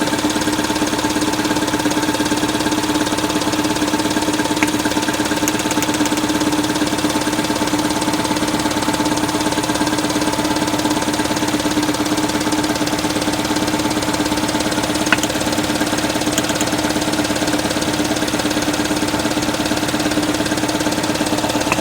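1979 Datsun 210's four-cylinder engine idling steadily with a persistent misfire; it looks to be running on only two of its cylinders, two of them dead.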